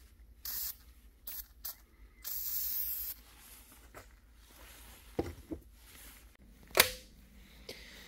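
Aerosol spray can hissing in four short bursts onto a side-by-side shotgun's action and barrels, the last burst about a second long. A few clicks follow, the sharpest one metallic with a brief ring, nearly seven seconds in.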